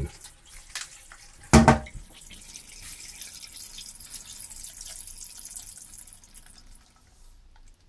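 Water hissing into a toilet cistern through a Fluidmaster quiet fill valve as the tank tops up. The hiss fades and stops near the end as the float shuts the valve off. A brief louder sound comes about one and a half seconds in.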